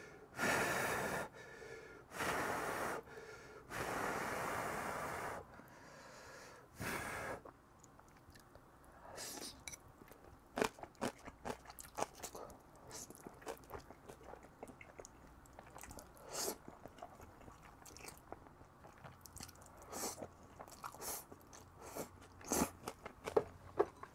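Close-up eating of jjajang ramen noodles: several long, loud slurps in the first seven seconds or so, then a steady run of short, wet chewing clicks.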